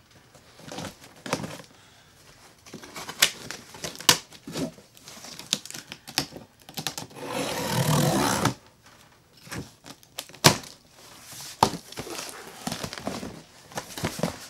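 A cardboard shipping box being cut open with a knife: the blade slicing through packing tape, tape tearing, and cardboard flaps scraping and knocking, in scattered clicks and scrapes. About seven seconds in there is a longer tearing sound lasting over a second.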